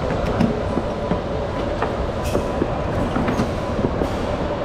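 Electric go-kart running along an indoor track: a steady rolling rumble and hiss with a faint constant whine and a few light clicks.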